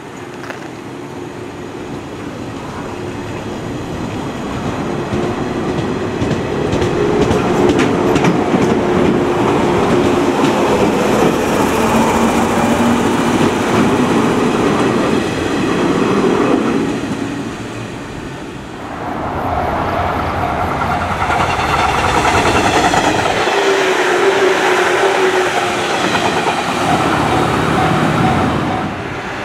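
A 115 series electric multiple unit running past close by. Its running noise grows louder over the first several seconds into a steady hum of motors and wheels, with rhythmic wheel clatter over the rail joints. The noise dips about two-thirds of the way through, then another stretch of train running noise follows.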